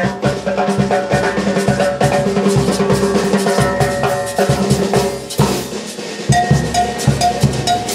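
A live dance band playing an instrumental passage: a steady drum beat, including a big bass drum, under brass holding and repeating notes, without singing. The music thins briefly just past halfway before the drums pick up again.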